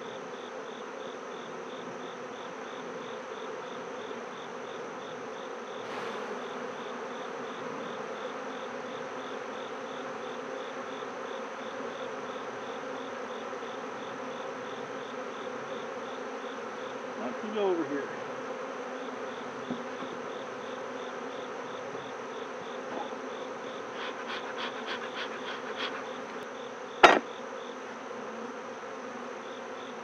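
Honeybees from an opened hive buzzing as a dense, steady hum, with one buzz sweeping down in pitch a little past halfway. Near the end a quick run of ticks is followed by a single sharp knock, the loudest sound.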